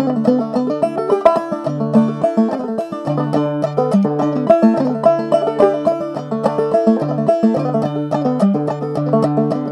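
Five-string open-back banjo played clawhammer style: a fast Irish reel in quick, even plucked notes over a recurring low note.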